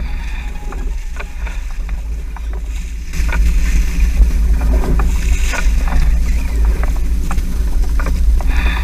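Sounds on board a small fishing boat at sea: a steady low rumble with water splashing and scattered knocks. It gets louder about three seconds in.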